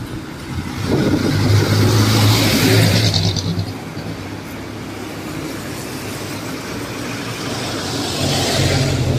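Two motor vehicles pass close by on wet asphalt, one about two seconds in and a jeepney near the end. Each brings a low engine hum and a hiss of tyres on the wet road that swells and fades.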